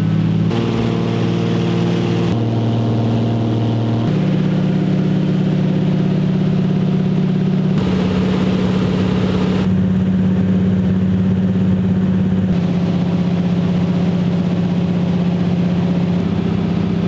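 Floatplane engine and propeller droning steadily, heard from inside the cabin during takeoff and flight. The pitch of the drone jumps abruptly to a new steady level several times.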